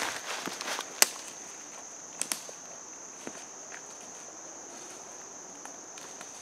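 Footsteps rustling through dry leaf litter, with a few sharp snaps, the loudest about a second in, over a steady high-pitched drone of insects.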